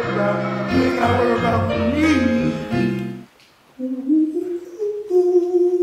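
A song with singing over a full backing band plays, then cuts off about three seconds in. After a short pause, a man hums a melody alone with no backing track, one slow, wavering vocal line.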